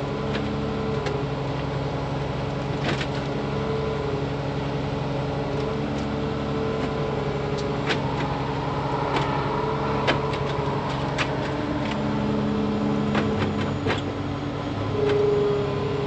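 Excavator's diesel engine running steadily under hydraulic load, with scattered sharp cracks and creaks of wood as a wind-damaged timber wall is shifted back into place.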